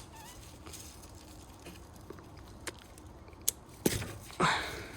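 Brake pad wear sensor's plastic connector being unplugged by hand: a few sharp small clicks in the second half, then a short rustling scrape near the end.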